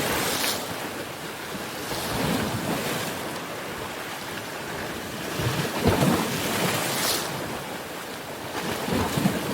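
Sea waves washing and breaking on a rocky shore: a steady rush of surf that swells into louder surges every few seconds, strongest about six and nine seconds in.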